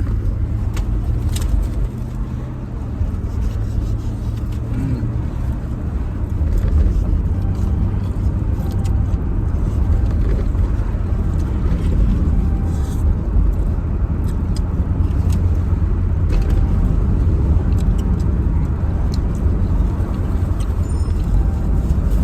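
Steady low rumble of motor-vehicle traffic, with a few faint clicks.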